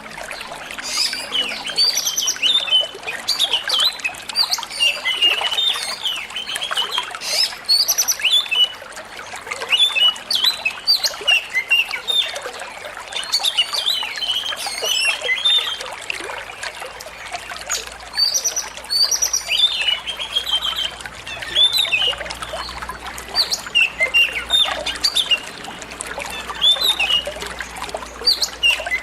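Oriental magpie-robin singing in a busy run of short chirps and whistles, with a couple of brief pauses, over a steady trickle of running water.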